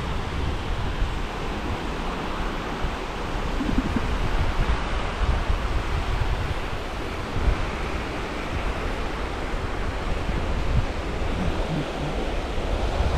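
Sea waves washing and breaking on the shore, with strong wind buffeting the microphone as a steady low rumble.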